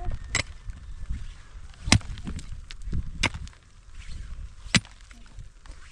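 Four loud, sharp blows, about one and a half seconds apart, with fainter knocks between them.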